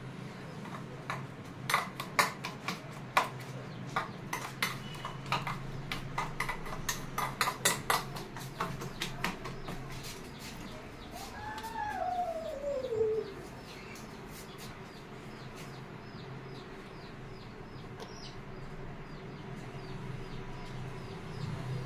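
Steel spoon beating egg in a steel bowl: a quick, irregular clatter of clinks for the first ten seconds or so. About halfway through, a single long falling call from a bird, over a faint steady hum.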